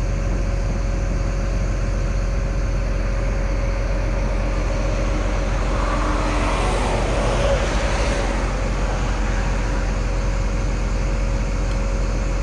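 John Deere excavator's diesel engine running steadily, heard from inside the open cab, with the hydraulics working as the stick is pulled back slowly to move the boom. The sound swells louder for a few seconds about six seconds in, then settles back.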